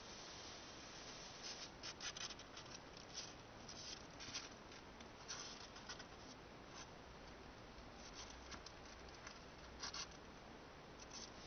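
Faint, irregular scratching and rustling: short scrapes scattered through, most of them in the first few seconds, with another pair near the end, over a steady background hiss.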